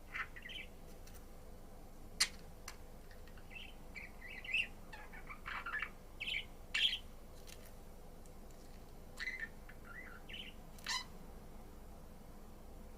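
Budgerigar chirping and warbling in short, scattered bursts, with a sharp click about two seconds in; the chirps stop about eleven seconds in.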